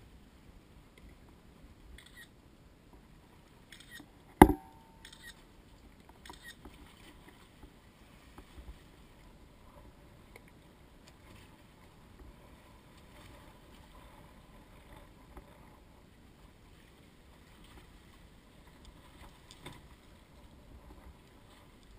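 One sharp, loud knock with a brief ring after it about four seconds in, amid faint scattered clicks and small knocks.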